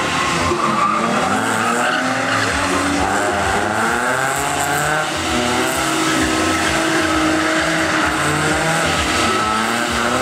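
BMW drift car's engine revving hard, its pitch rising and falling over and over while the rear tyres spin and squeal through donuts.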